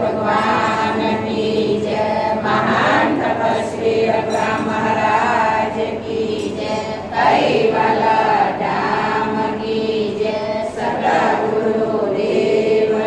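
A congregation chanting a devotional prayer together in unison, drawing out long notes in a slowly wavering melody.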